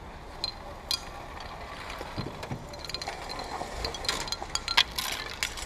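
Scattered light clicks and clinks of small hard objects, most of them bunched about four to five seconds in, over a steady low background hum.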